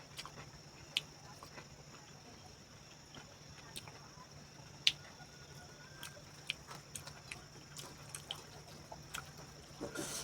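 Mouth sounds of a person eating: irregular wet clicks and smacks of chewing, one sharper click about halfway through, over a steady background hum.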